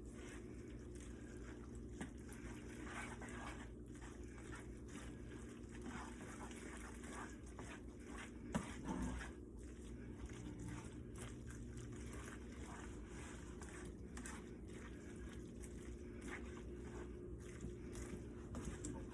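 Faint wet, squishy liquid sounds from a pot of noodles in a heavy-cream and mozzarella sauce, over a steady low hum, with one sharper knock about eight and a half seconds in.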